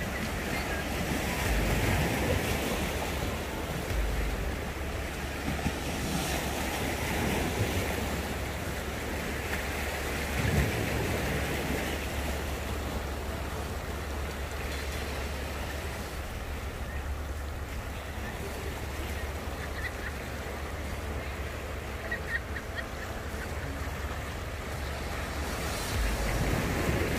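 Small sea waves washing and splashing over the rocks of a breakwater, a steady surf hiss that swells every few seconds. Wind buffets the microphone with a low rumble underneath.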